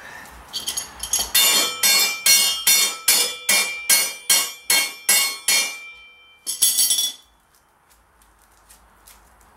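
Steady metal-on-metal hammering on the steel spindle bolt of a mower deck spindle, about three ringing blows a second for some five seconds, then one more strike a second later: the bolt being knocked up through the spindle shaft.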